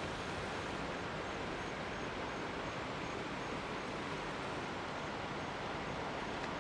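Built-in blower fan of an airblown inflatable running steadily, a constant whooshing hum of air as it fills the ghost.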